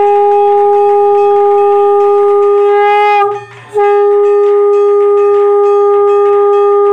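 Conch shell (shankha) blown in long, steady notes: a blast of about three seconds, a short break for breath, then a second blast that carries on.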